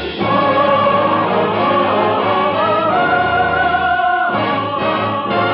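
Choir and orchestra playing the radio programme's closing music in long held chords; the held notes change about four seconds in.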